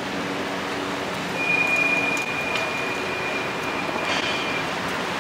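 City street traffic noise, a steady wash of vehicles, with a high, steady squeal lasting about three seconds in the middle.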